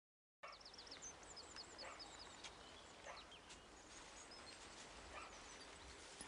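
Faint bird chirping over a low hiss: a quick run of high twitters about a second in, then scattered single chirps.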